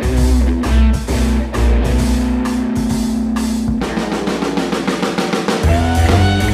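Rock music with a drum kit and guitar, playing a steady beat; about four seconds in the drummer plays a fill, then the full band with heavy bass comes back in.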